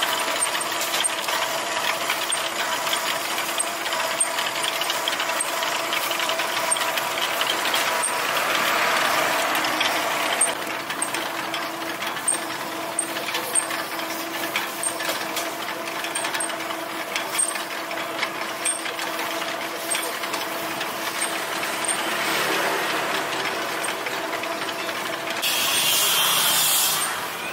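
Motorised charcoal rotisserie running: a steady mechanical hum from the drive that turns the chain-linked spits, with faint regular ticking. A brief louder hiss comes near the end.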